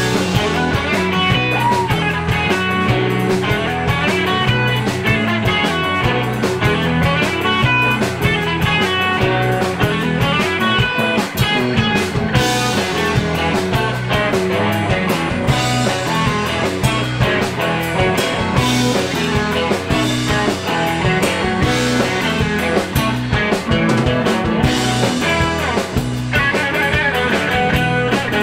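Live rock band playing loudly: several electric guitars over a drum kit.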